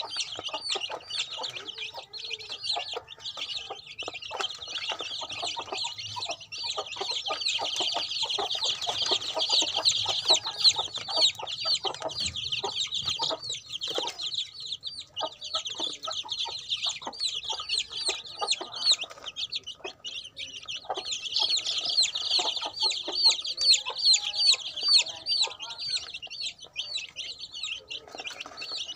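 A brood of young chicks peeping constantly, many short, high-pitched calls overlapping in a continuous stream.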